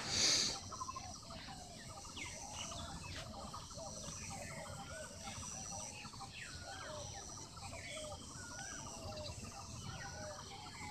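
Many birds chirping and calling over one another in a busy chorus, with a faint steady high tone behind them and a brief thump at the start.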